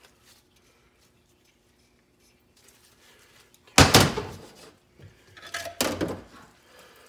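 Automatic-transmission parts put down on a steel workbench: a loud clunk of metal on metal about four seconds in that rings briefly, then a lighter clatter a second and a half later.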